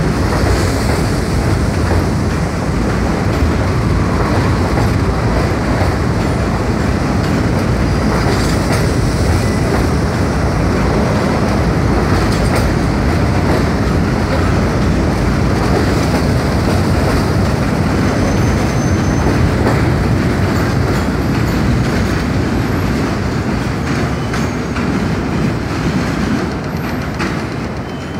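R42 subway train pulling out of an elevated station, its cars rolling past with a steady rumble and the clickety-clack of wheels over the rail; the sound eases off near the end as the last car clears.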